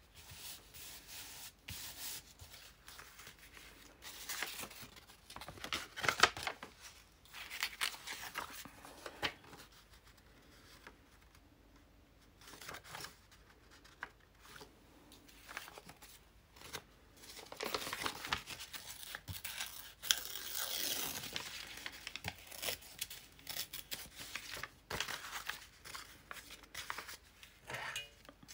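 Paper being handled and torn by hand: rustling of old printed paper with spells of tearing, the longest around four to nine seconds in and again near the two-thirds mark.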